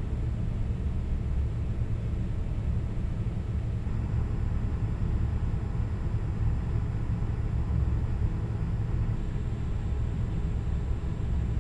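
Steady low rumble of distant city traffic, with a faint thin high tone over it.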